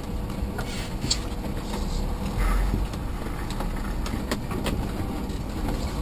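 International ProStar semi truck's diesel engine running at low speed, heard from inside the cab as the truck rolls slowly, with scattered light clicks and rattles over the steady low rumble.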